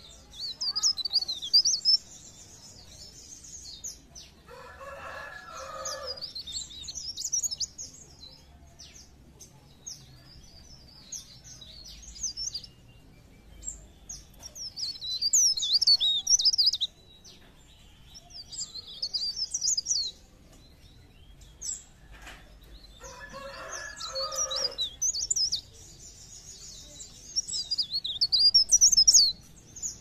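Cikrak daun (pare-pare) songbird singing: high, rapid twittering phrases of one to three seconds, repeated with short pauses, loudest about halfway through and near the end. A rooster crows twice in the background.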